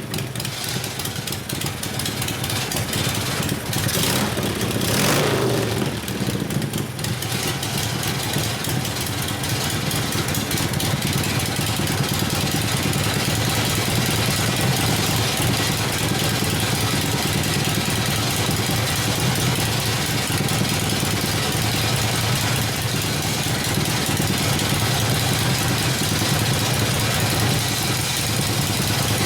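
1972 Harley-Davidson Ironhead Sportster V-twin engine running steadily at idle after its rebuild, with a brief burst of louder noise about four seconds in.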